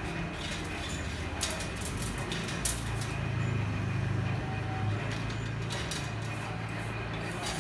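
Mechanical power press running with a steady low motor hum, and irregular metallic clanks and clicks as steel strip is fed off a hand-turned coil decoiler into it. The loudest clank comes about two and a half seconds in.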